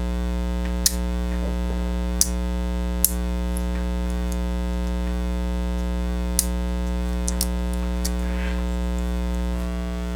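Steady electrical mains hum, with a handful of short sharp clicks from a Leatherman Juice XE6 multi-tool as its tools are handled and folded shut.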